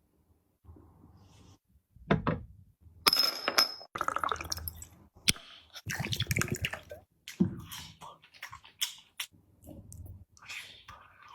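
Close-up eating sounds: irregular clicks and clinks of utensils with wet slurping and mouth noises.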